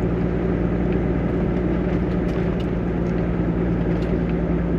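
Toyota LandCruiser 80 Series cruising steadily, heard from inside the cabin: a constant engine hum with tyre noise rolling over a dry, hard salt pan.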